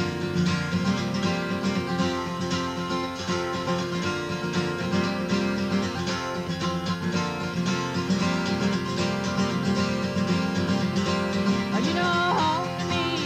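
Steel-string acoustic guitar strummed steadily through an instrumental passage of a country song, between sung lines.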